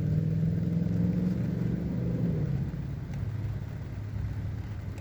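A car engine running close by, its hum fading out about two and a half seconds in and leaving a low, steady rumble.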